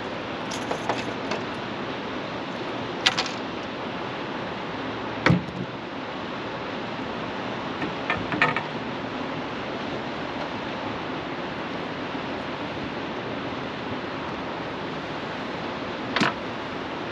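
Steady rush of river water, with a few sharp knocks and clicks about three, five and sixteen seconds in.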